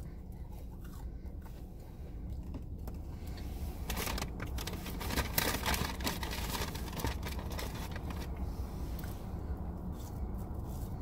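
Rustling and scraping of a puffy jacket and food packaging as a person leans across a car seat, loudest in the middle, over a steady low hum inside the car. Chewing can be heard at the start and end.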